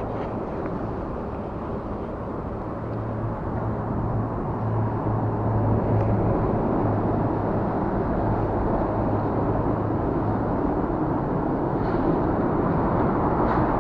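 Steady rumble of lorry traffic crossing the bridge overhead, with a low droning hum, growing louder about five seconds in.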